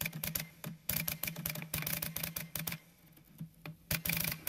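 Typewriter keys striking the paper in quick runs of clicks, with a pause of about a second before a last short run near the end, over a faint low steady hum.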